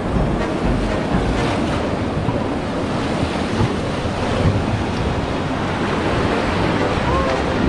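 Whitewater rapids rushing and splashing around an inflatable raft's bow, steady throughout, with wind buffeting the microphone.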